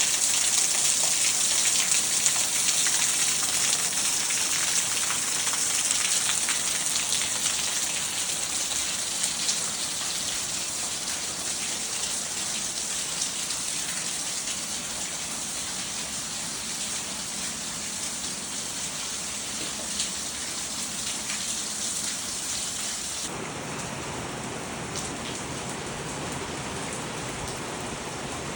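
Steady rainfall, a dense hiss with scattered individual drops ticking, easing slowly. About 23 seconds in the sound changes abruptly to less hiss and a deeper, lower wash.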